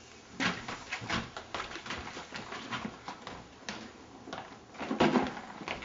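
Quick footsteps and small knocks of someone moving briskly through a house, with a louder cluster of thumps about five seconds in.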